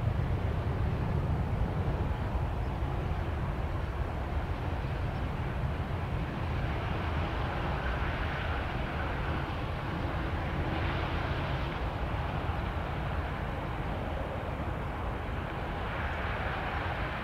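Boeing 787-9 jet engines running as the airliner rolls along the runway, a steady deep rumble that slowly fades.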